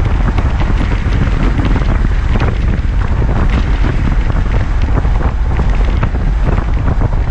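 1978 Corvette pace car's V8 cruising at a steady highway speed, heard from inside the cabin: a steady low drone mixed with wind and road noise.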